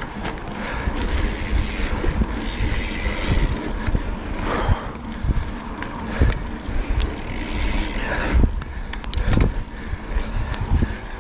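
Cannondale Scalpel-Si mountain bike riding over a dry dirt trail: a steady rolling rumble from the tyres on loose dirt, with frequent clicks, rattles and knocks from the bike over bumps.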